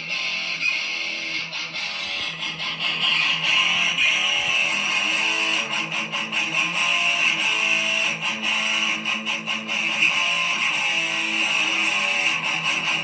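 Background music: strummed electric guitar with a steady rhythm.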